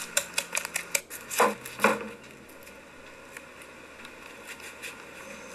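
Pastry cutter mashing avocado in a bowl: quick clicks and scrapes of its metal blades against the bowl, with two duller knocks at about one and a half and two seconds in. After that, only a low room sound with a few faint ticks.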